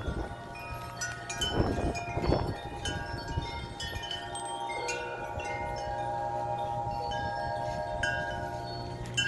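Metal wind chimes ringing in strong wind, many notes struck at random and ringing on over one another. Gusts buffet the microphone about two seconds in.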